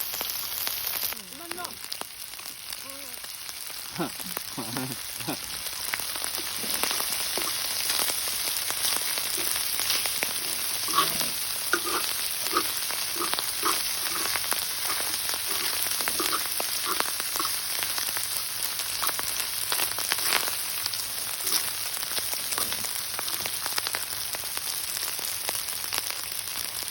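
Pork belly frying on a cast-iron cauldron lid, with a steady sizzle and spatter. A run of short pitched calls comes through about halfway.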